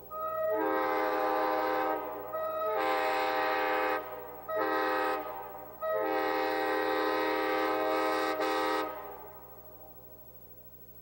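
Multi-chime train air horn sounding a chord in four blasts, long, long, short, long: the standard grade-crossing signal. At the start of each blast one bell speaks a moment before the rest of the chord joins in.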